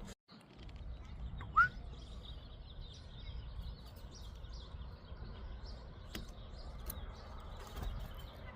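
Birds chirping faintly over a steady low outdoor rumble, with one short, louder rising chirp about a second and a half in.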